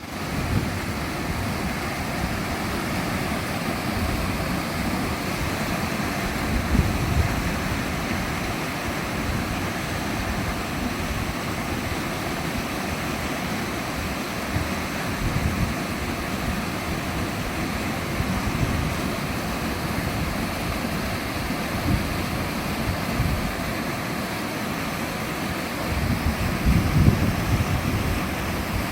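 Waterfall rushing steadily. Low rumbles of wind on the microphone rise about a third of the way in and again near the end.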